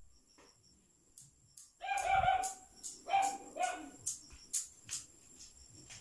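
A rooster crowing in two steady-pitched parts, about two seconds in and again about three seconds in, over a run of sharp high clicks.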